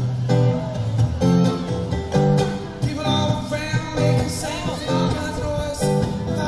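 Acoustic guitar strummed in a steady rhythm with a man singing, played live by a solo performer.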